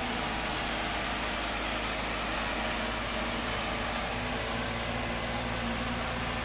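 Engine of a utility boom truck idling steadily, an even low drone with no change throughout.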